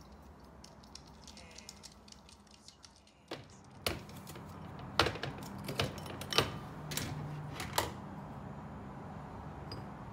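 Light ticking, then about six sharp clacks and knocks of objects being handled, over a low steady hum that comes in about three seconds in.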